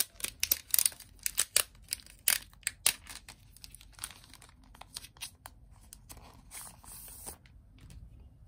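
A clear plastic envelope crinkling and crackling as its flap is pulled open and the sleeve is handled. There is a fast run of sharp crackles over the first three seconds, scattered rustles after, and a longer rustle about seven seconds in.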